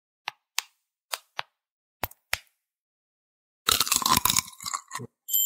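Glassy sugar shells of candied strawberries tapped together in six sharp clicks, in pairs, then a burst of crackling crunch as the hard candy shell breaks. A bright ding rings out just before the end.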